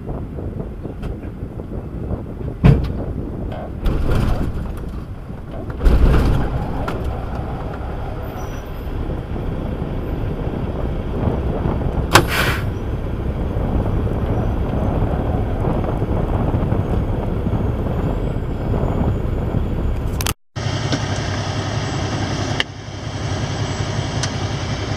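Diesel semi-truck engine being pull-started: a few loud knocks in the first six seconds, then the engine running steadily. A short hiss of air comes about twelve seconds in, and near the end the engine settles to a steady idle. The tow start is needed because of a failed starter.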